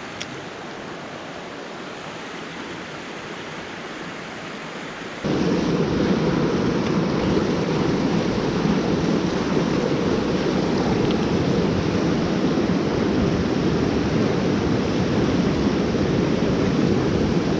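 Steady rush of water over the rocks of a creek's rapids, which jumps abruptly louder about five seconds in.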